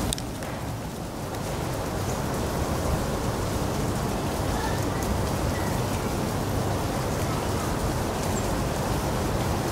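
Steady rain-like patter of many frost-loosened autumn leaves falling through the branches and landing, with scattered small ticks.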